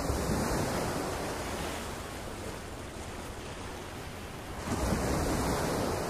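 Small surf waves breaking and washing up the sand at the water's edge, in two surges: one right at the start that fades over a couple of seconds, and another about five seconds in.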